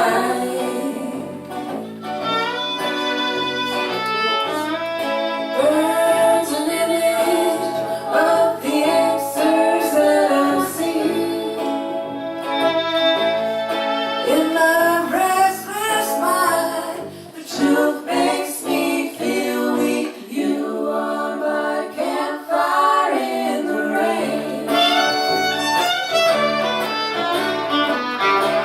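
Acoustic folk song: a voice singing the melody over acoustic string accompaniment.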